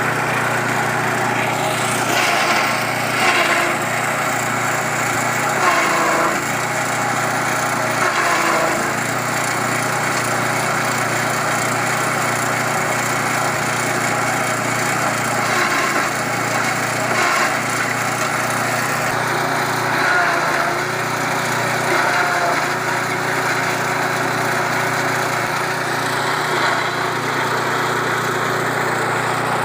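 Grass chopper (forage chaff-cutting machine) running steadily on a small engine, with brief louder moments every few seconds.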